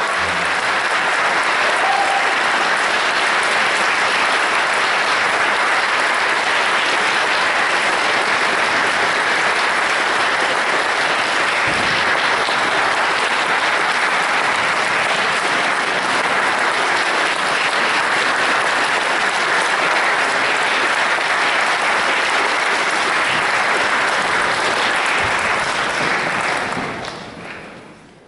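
Audience applauding steadily after an orchestral performance, fading out near the end.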